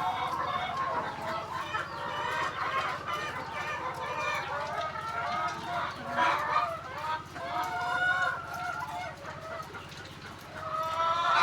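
A flock of laying hens clucking, many short calls overlapping one another without a break.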